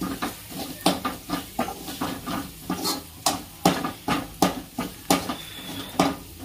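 A steel spoon stirring spiced onion masala in a steel kadai, clinking and scraping against the pan about twice a second at an uneven pace, with the masala frying underneath.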